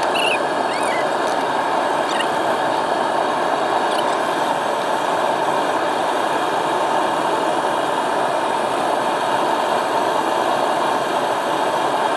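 Metal-melting furnace running, a loud steady rushing noise with a few faint high squeaks in the first second.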